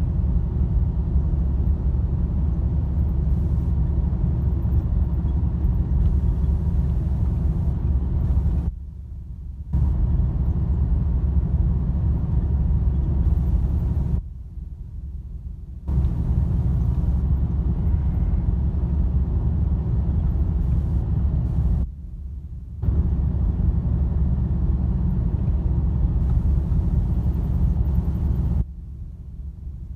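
Steady low road and engine rumble heard from inside a vehicle cab at highway speed. It drops away abruptly four times for a second or two before returning.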